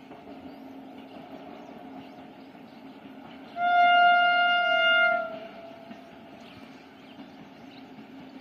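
Horn of an approaching Indian Railways train, still out of sight: one long blast of about a second and a half, midway through. It sits over the steady, distant hum of the train running.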